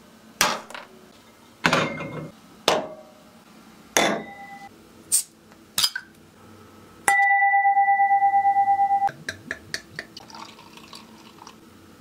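A series of sharp knocks and clatters as dishes of food are set down on a wooden table, a few ringing briefly. Then a loud steady tone lasts about two seconds and cuts off suddenly, followed by quick light glassy clinks and the faint fizz of beer being poured into a glass.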